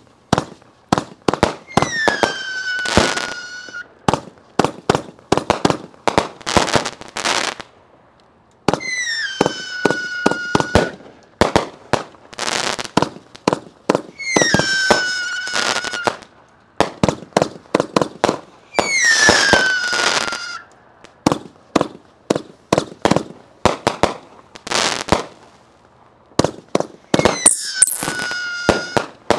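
Dakota Strong 500-gram fireworks cake firing a rapid series of shots, with sharp launch reports and breaks throughout. Five times a whistling shot rises over them, its high whistle dropping in pitch and then holding for a second or two.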